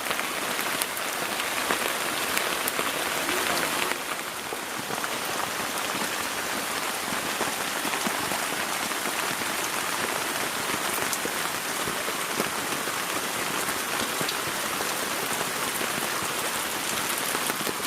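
Rain falling steadily, with many separate sharp drop hits over a dense hiss. It eases slightly about four seconds in.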